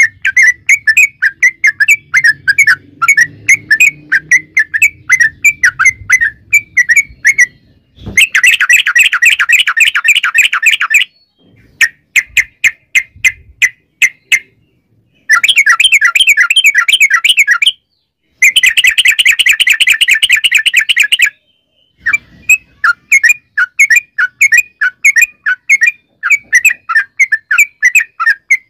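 Yellow-vented bulbul singing: a loud string of quick chirping notes, several a second, broken by three stretches of fast, continuous trilling with short silent pauses between them.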